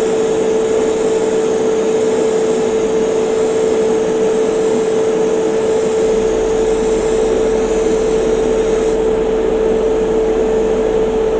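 Airbrush spraying thinned surface primer: a steady hiss of air over the constant hum of a running motor, with the top of the hiss falling away about nine seconds in.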